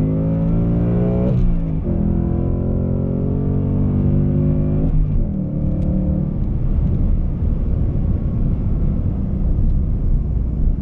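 Ford Mustang GT's 5.0-litre Coyote V8, heard from inside the cabin, accelerating hard through the six-speed manual: the revs climb, drop at the shift to third about a second and a half in, climb again, and drop at the shift to fourth about five seconds in. A few seconds later the throttle comes off and the engine note fades under tyre and wind noise as the car slows.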